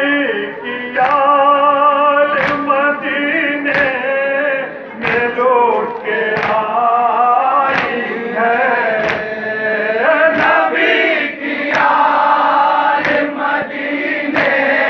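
Shia nauha (Muharram lament) sung by a male lead reciter, with a group of men singing along. Under the singing, unison chest-beating (matam) strikes land about every 1.3 seconds.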